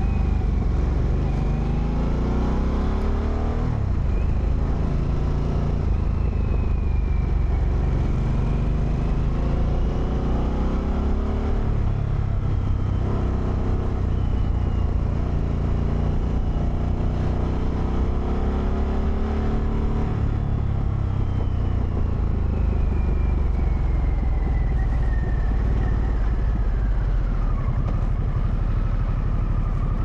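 Harley-Davidson Sportster V-twin engine under way, its revs climbing and dropping back at upshifts about 4, 12 and 20 seconds in, then winding down steadily as the bike slows.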